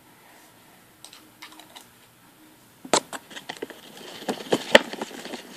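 Glitter being shaken and tapped out of a small plastic container into slime: a fast, irregular run of sharp clicks and taps starting about three seconds in, after a few faint ticks.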